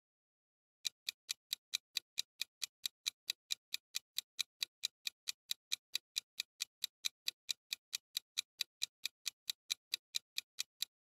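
Clock-tick sound effect counting down a quiz timer: fast, even ticks, about four or five a second, starting about a second in.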